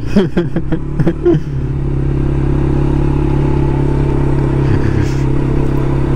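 Quad bike engine running as the bike rides along a street. For the first second and a half a wavering, rising and falling pitched sound sits over it; then the engine settles into a steady drone.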